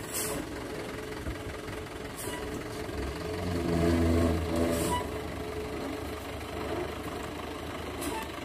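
A vehicle engine idling steadily, swelling louder for about a second and a half around the middle, with a few faint clicks.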